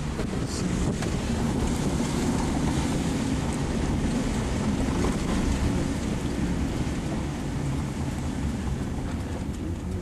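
Car driving on a wet road in rain, heard from inside the cabin: a steady low rumble of engine and tyres with a hiss of wind and spray.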